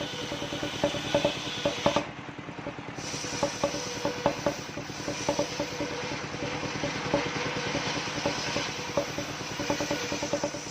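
Engine-driven mobile circular sawmill running, with a fast steady engine beat, a steady hum and sharp clicks a few times a second. The top end dulls for about a second near the start.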